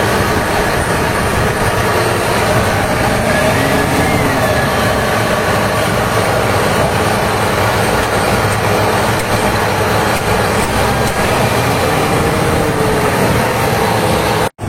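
HB365 excavator's diesel engine running steadily on test after a turbocharger repair, with a faint higher tone gently rising and falling above the engine note. The sound cuts out briefly near the end.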